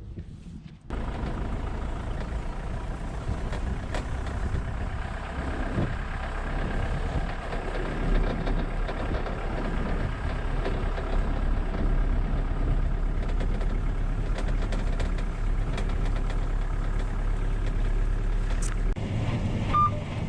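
John Deere T670i combine harvester running steadily, its engine and machinery a continuous mechanical drone that comes in abruptly about a second in. A low hum grows stronger from about eight seconds until near the end.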